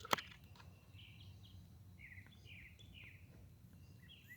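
A single sharp click just after the start, then small birds chirping in a run of short, quick, downward-sliding calls over a faint low background hum.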